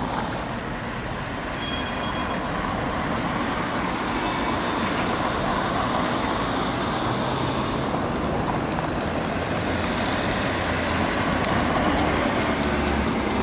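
Trams and road traffic running through a busy city tram junction: a steady rumble of wheels on rails and road noise, growing a little louder near the end as trams draw closer. Two brief shrill, high-pitched sounds stand out, about one and a half and four seconds in.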